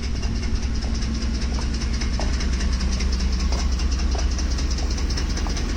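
Ford 5.4-liter 3V Triton V8 running hot with a loud, fast, even clatter from the top of the engine. The owner takes the clatter for a timing chain that has gone loose as it expands with heat.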